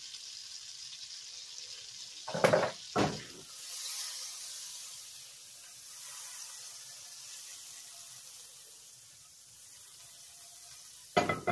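Butter melting and sizzling softly in a nonstick frying pan over a gas burner, a faint steady hiss. Two short knocks come about two and a half seconds in, and another just before the end.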